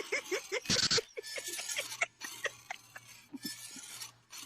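A person laughing in short, quick bursts, loudest in the first second, with a brief rush of noise just before a second in; the laughs thin out after that over a faint steady hum.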